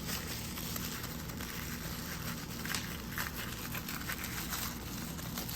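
Packaging crinkling and rustling as a Play-doh set is handled and worked open by hand.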